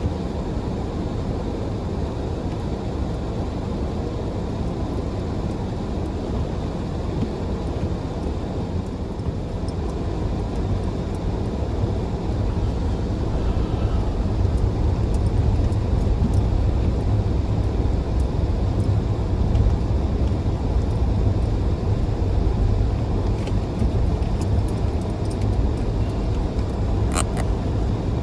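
Rear-wheel-drive car driving on a snow-covered road: a steady low rumble of engine and tyres that grows louder about ten seconds in.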